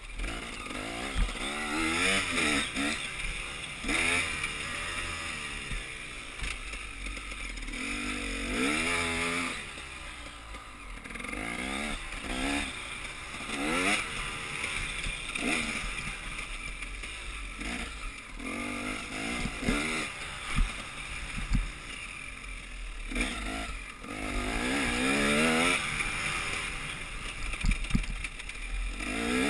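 Enduro motorcycle engine revving up and falling back again and again as the rider accelerates and shifts, over a steady rushing noise, with a few short knocks.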